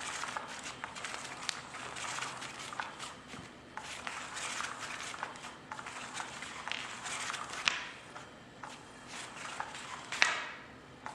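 A cat playing with a toy: irregular scratching, rustling and light clicks, with two sharper clacks, about eight and ten seconds in.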